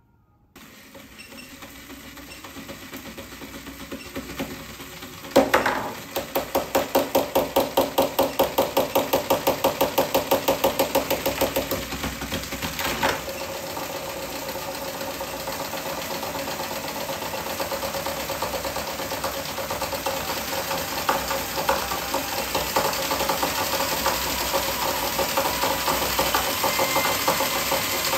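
Small electric motor and plastic gearbox of a dancing-gorilla toy, its shell off, running faster and louder as the supply voltage is turned up. A sharp knock about five seconds in leads into an even clatter of about five beats a second, which turns into a quicker, steadier rattle that keeps growing louder.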